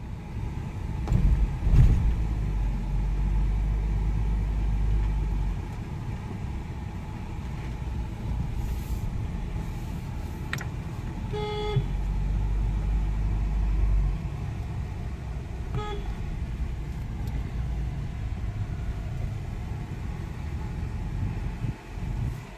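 Car engine and road noise heard from inside the cabin while driving, with a low rumble that swells twice. There is a short horn toot about halfway through and a fainter one a few seconds later.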